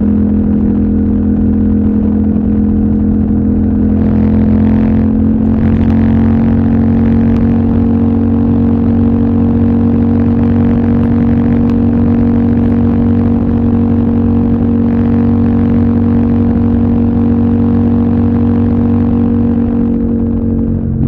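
CFMOTO 800NK's 799 cc parallel-twin engine pulling at steady revs under way. The engine note rises slightly about four seconds in, holds, and eases off near the end.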